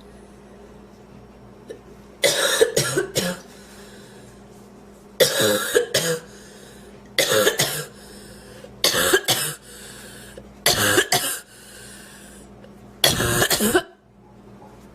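A woman's coughing fit: six bouts of two to four coughs in quick succession, about two seconds apart, starting about two seconds in. She is trying to clear food inhaled into her windpipe.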